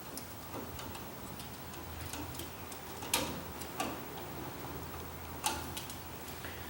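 A few light, scattered clicks and taps of a screwdriver and stripped wires being worked at a wall receptacle's terminal screws, over a faint steady low hum.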